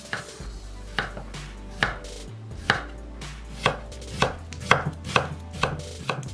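Chef's knife slicing a firm salt-pickled cucumber (oiji) into thin rounds on a wooden cutting board. About ten knife strikes on the board, roughly one a second at first, quickening to about two a second.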